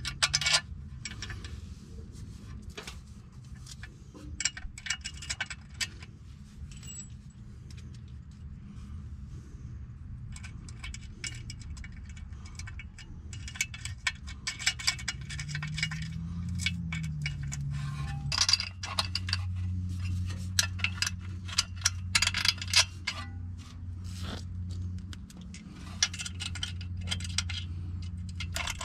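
Clinks and light metallic rattles of a powder-coated sheet-metal differential cooling plate and its bolts being worked into place against the rear differential's finned cover, over a low steady hum that gets louder about two-thirds of the way in.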